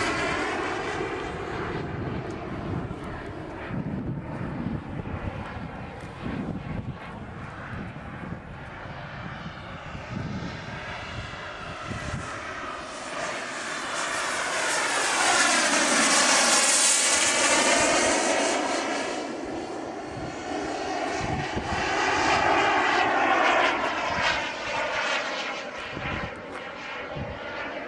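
Turbine-powered radio-controlled F-14 Tomcat model jet flying past overhead, a continuous turbine whine and rush. It swells loud about halfway through, again a few seconds later as it comes round, and fades near the end.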